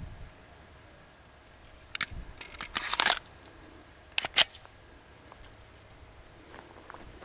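A few sharp mechanical clicks and clacks: one about two seconds in, a short rattling cluster just before three seconds, and a loud double click a little past four seconds.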